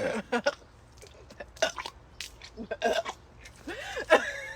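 A person's short throat sounds during the Sprite challenge: scattered clicks and catches, small stifled burps, and a brief voiced sound rising and falling about four seconds in.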